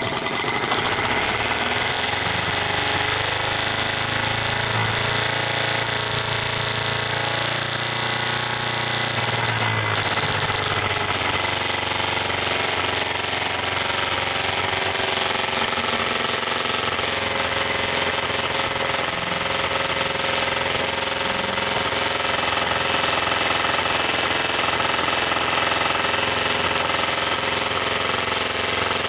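Microcosm M12 miniature gas engine running steadily with a fast, even mechanical clatter.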